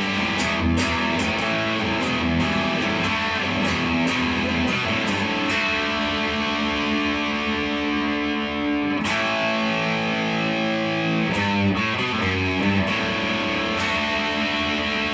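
Les Paul Special electric guitar played: quick strummed chords for about the first five seconds, then chords left to ring, with a short run of picked notes about eleven seconds in.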